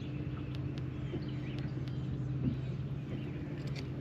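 Steady low hum of the bass boat's motor, with faint bird chirps and a few light clicks over it.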